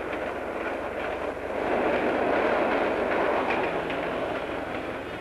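Passenger train running past along a raised railway embankment: a steady rushing rumble that swells to its loudest about halfway through, then eases.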